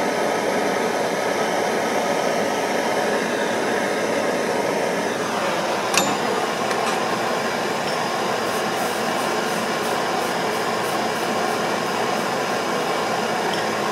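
Gas torch flame hissing steadily as it heats a steel pistol frame for silver soldering. A sharp click comes about six seconds in, and a run of faint light ticks follows later.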